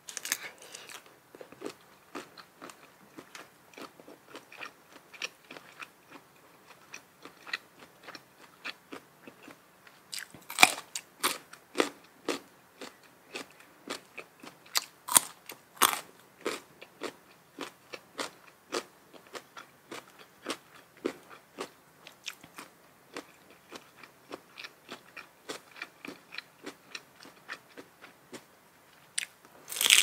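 Close-up chewing and biting of spicy seafood papaya salad with jumbo shrimp: continuous wet chewing clicks, with a run of louder crunchy bites about ten to sixteen seconds in.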